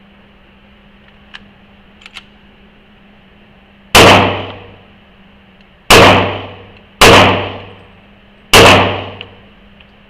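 Four handgun shots fired at an uneven pace in an indoor range, each ringing out with a long echo, after a few faint clicks.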